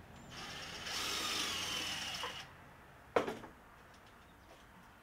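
Cordless driver with a 10 mm deep socket whirring for about two seconds as it unscrews the last threaded rod from the battery-module stack, its whine falling slightly. A single sharp knock follows about three seconds in.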